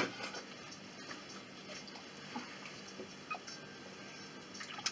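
Quiet kitchen with a few faint, scattered clicks and clinks of cookware being handled, over a low steady hum.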